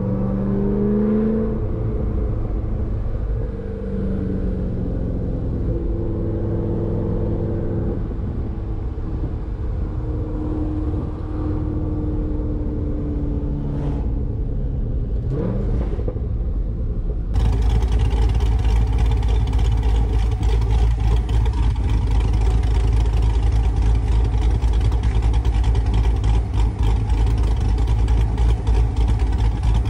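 Chevrolet Corvette ZR1's supercharged V8 running while the car is driven, heard as a steady engine drone from inside the cabin, with its pitch sliding up and down briefly about fifteen seconds in. A little past halfway the sound changes abruptly to a louder, rougher rumble with a hiss over it.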